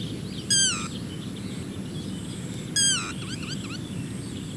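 Yellow-wattled lapwing calling: two short, falling calls about two seconds apart, with fainter chirps after the second, over steady low background noise.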